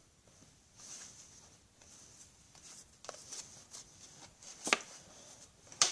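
Trading cards and pack wrappers being handled on a table: soft rustling and sliding, with two sharp taps near the end.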